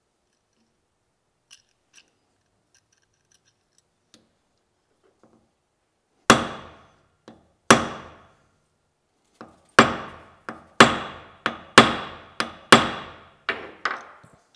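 Hammer blows on a small steel piece resting on the anvil face of a bench vise. There are about fourteen sharp, ringing strikes of uneven strength, a few spaced out at first and then a quicker run in the second half, after some faint clicks of handling.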